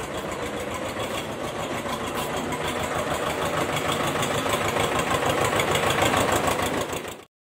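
Motor sound of a mini toy tractor running steadily with fast, even pulsing, growing slightly louder, then cutting off abruptly near the end.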